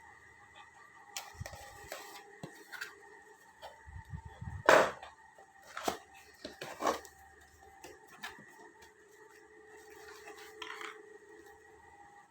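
Handling noises of a package being opened: scattered clicks, scrapes and rustles, the loudest a sharp knock with a scrape about two-thirds of the way through the first half, then a few more knocks.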